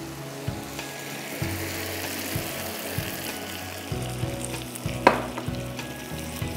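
Brown sauce sizzling steadily in a hot frying pan on a gas burner while a plastic spatula stirs it, scraping and tapping the pan, with one sharper knock about five seconds in.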